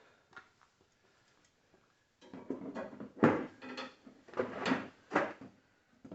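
Handling of tools or parts: a quick run of knocks, clunks and scrapes about two seconds in, the loudest a sharp clunk near the middle, after a short quiet stretch.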